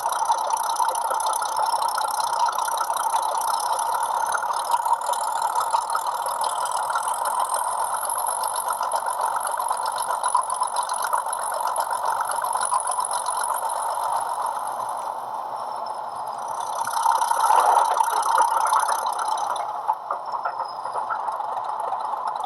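Class 31 diesel locomotive sound profile from a Hornby HM7000 sound decoder, heard through a model's small speaker: the engine sound runs steadily with a rattle. A louder function sound swells in about three-quarters of the way through, then fades.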